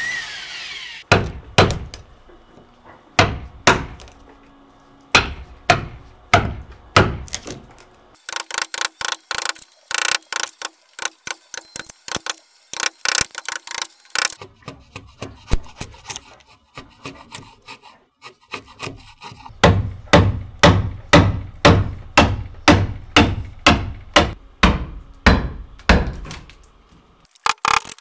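Hammering on wood: single blows spaced out, then a run of quick light taps, then a steady run of heavier blows at about two a second.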